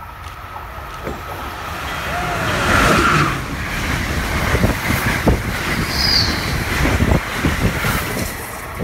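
Amtrak passenger train of Amfleet coaches passing at speed close by: a rushing roar of wheels and air that builds over the first three seconds and stays loud, with many sharp clacks from the wheels on the track.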